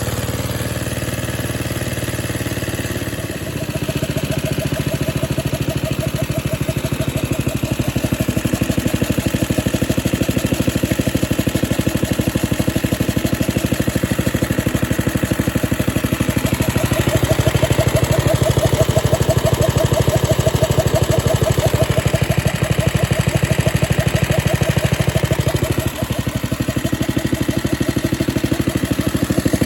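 Small cast-iron Briggs and Stratton single-cylinder engine, fitted with a Super Lo Tone muffler, running steadily while it drives a single-cylinder air compressor pump. About three and a half seconds in it picks up and runs louder, and it dips briefly near the end.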